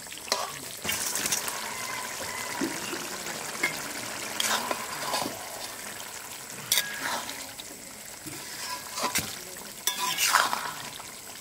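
Pumpkin and fish curry simmering with a steady sizzle in a steel kadai, while a metal spoon and spatula scrape and clink against the pan several times as it is stirred.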